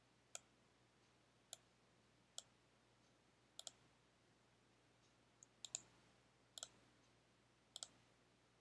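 Computer mouse clicking: scattered sharp clicks about a second apart, some single and some in quick pairs, over near silence.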